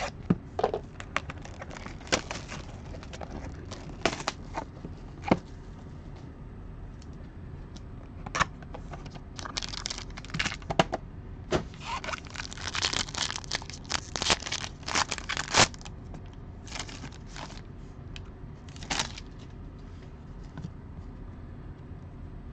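Shrink-wrap and cardboard of a Panini Elements football hobby box being torn and crinkled open by hand, then the cards handled. Irregular crackles and sharp taps, densest about halfway through.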